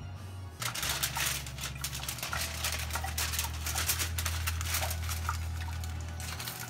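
Aluminium foil crinkling and crackling as hands fold it around a piece of meat, starting about half a second in.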